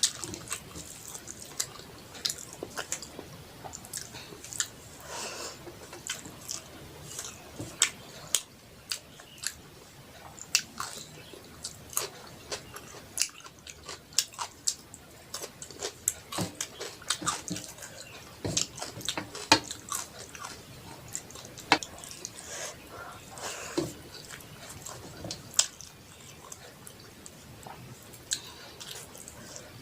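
Close-miked chewing and biting of a rice-and-curry meal, with irregular wet mouth clicks and smacks.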